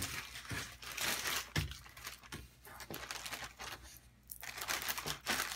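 Clear plastic parts bags crinkling and rustling in the hands as keys and screws are put back into them, in bursts with short pauses and a few small clicks.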